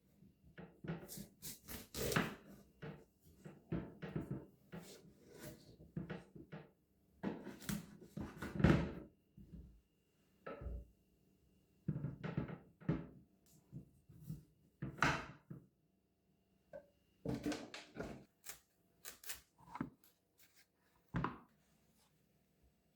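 Irregular knocks, taps and clatter of objects being handled, set down and moved about, with a few brief rustling swishes in between.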